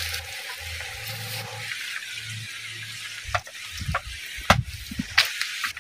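A steady hiss, with a couple of held tones and a low hum in the first half. From about three seconds in come a handful of sharp knocks from bamboo poles being handled.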